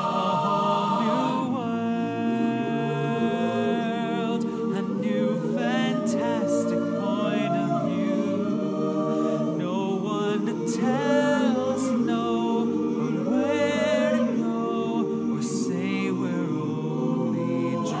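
Music: slow, sustained singing in the manner of a choir, with wavering held notes over steady chords.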